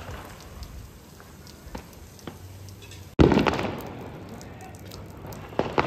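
Firecrackers going off on a festival night: faint scattered pops over a low background, then one sudden loud bang about three seconds in that fades over a second.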